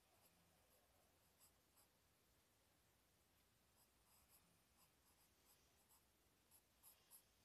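Faint scratching of a pencil drawing on paper, in short irregular strokes, with a few sharper strokes near the end.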